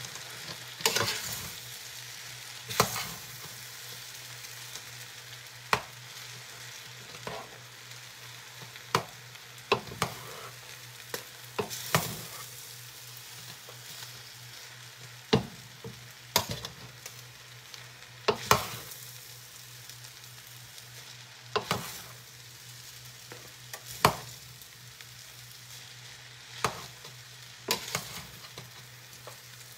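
Pancit noodles sizzling in a large stainless steel pot while metal tongs toss them, with sharp irregular clacks of the tongs against the pot every one to three seconds.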